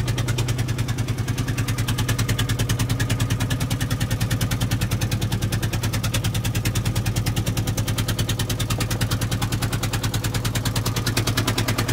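A fishing boat's engine running steadily, with a rapid, even beat of pulses.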